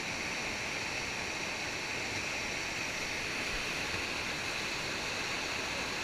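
Steady rush of whitewater rapids on a creek running high with spring runoff.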